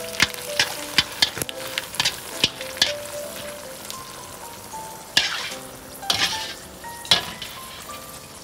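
Dried red chilies deep-frying in hot oil in a wok: steady sizzling, with frequent sharp clicks and scrapes as a wire spider skimmer stirs them against the wok, and a few louder surges of sizzle in the second half.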